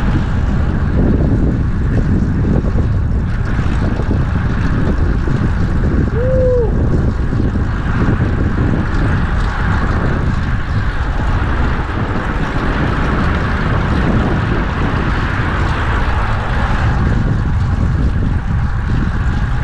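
Steady wind noise buffeting the action camera's microphone while riding a fixed-gear bicycle, with traffic noise underneath. A brief tone rises and falls about six seconds in.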